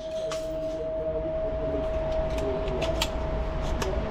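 Gun range background: a steady high-pitched whine holds throughout, under several faint, sharp gunshots from other shooters, two of them close together around three seconds in.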